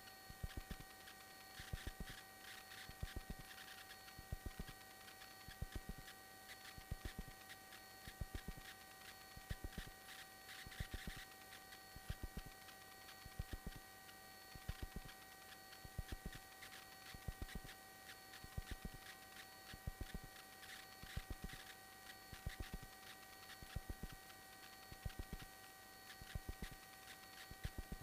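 Faint electrical hum with several steady whining tones on the aircraft's radio and intercom audio feed, broken by short clusters of clicks that recur about every one and a half seconds.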